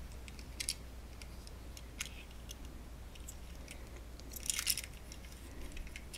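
Handling sounds from a small die-cast toy car: faint scattered clicks and taps, with a short crinkling rustle about four and a half seconds in.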